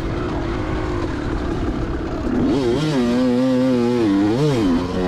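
2004 Kawasaki KX250's single-cylinder two-stroke engine being ridden. It runs low for the first couple of seconds, then revs up about halfway through, holds, and drops and picks up again near the end as the throttle is worked.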